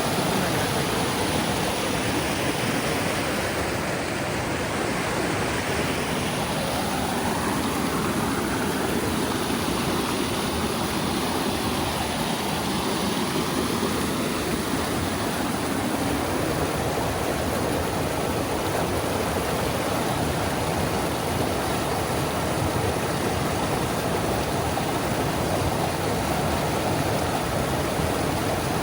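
Rushing water of river rapids: a steady, even roar of flowing whitewater.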